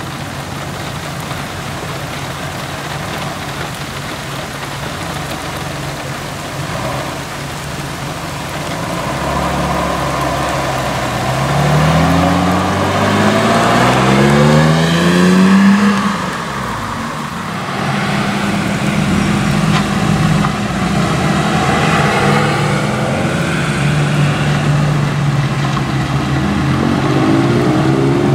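BMW E24 6 Series coupé's straight-six accelerating away on a wet road, its pitch rising in several steps through the gears, with tyre hiss on the wet surface. Later the engines of the next cars in line run steadily as they roll up.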